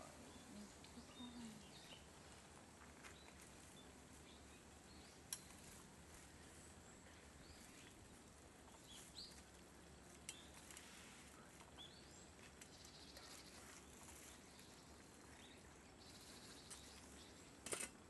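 Faint woodland quiet with scattered short, high chirps of small birds and a few sharp clicks, the loudest near the end.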